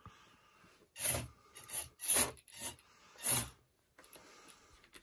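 Antweight four-wheel-drive robot driving in several short bursts on a wooden desktop, its small drive motors whirring and rubber wheels scrubbing on the wood as it turns and shoves a plastic box.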